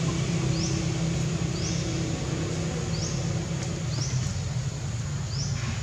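Outdoor ambience: a steady low hum, with a short high rising call repeated about once a second.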